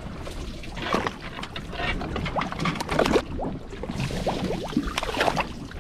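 Seawater sloshing and splashing around a small fishing boat and its open live well, with scattered sharp clicks and knocks.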